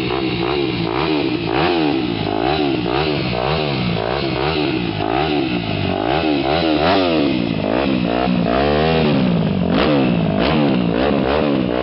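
Yamaha 250 cc motocross bike engine being revved in repeated throttle blips, its pitch rising and falling quickly again and again, with one longer climb and drop about eight to nine seconds in.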